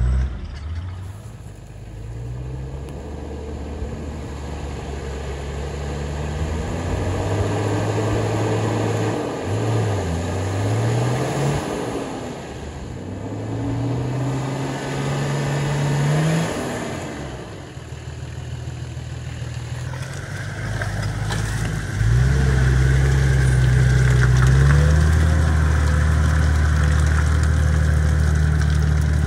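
Off-road 4x4 engines revving and labouring through muddy ruts, the pitch rising and falling again and again with the throttle. About two-thirds of the way through, a louder, steadier engine takes over, held at a high pitch.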